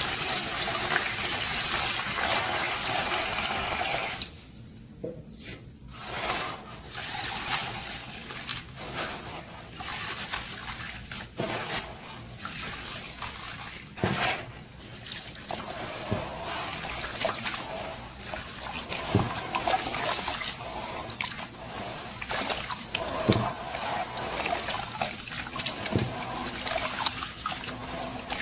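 Dry cement crumbling and falling into water, with a trickling, watery sound. A dense steady hiss for about the first four seconds, then irregular crumbling bursts and small clicks.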